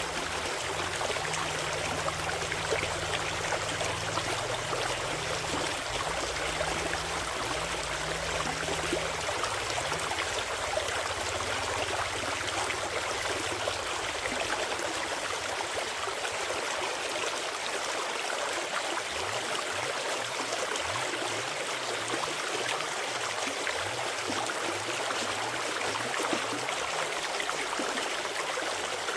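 Forest stream flowing steadily, a continuous rush and babble of water.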